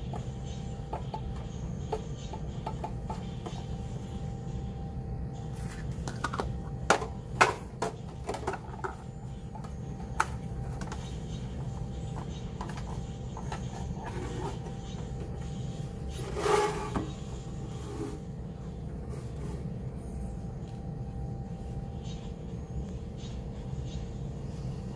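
Sharp clicks and knocks from a butane canister being seated and a plastic lid fitted in a portable gas camping heater's canister compartment, clustered about a quarter of the way in. A short scraping rattle comes about two-thirds through, over a steady low hum.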